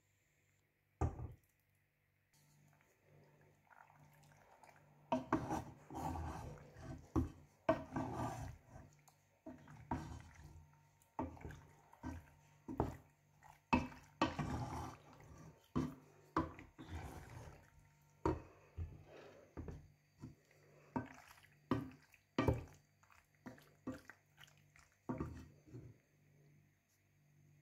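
Wooden spoon stirring penne through tomato sauce in a pan: repeated knocks and scrapes against the pan with wet, sticky stirring sounds, about one stroke a second, after a single knock about a second in. A steady low hum runs underneath.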